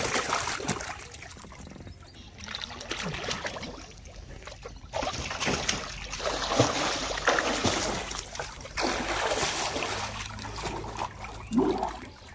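Splashing and trickling water: a fish splashes into a tarp-lined water tank at the start, then a man dives and moves under the pond's surface, churning the water in uneven surges.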